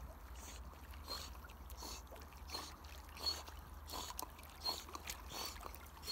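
Black Labrador swimming with a stick in its mouth: soft paddling splashes and laps of water at an even pace, about one and a half strokes a second, over a low steady hum.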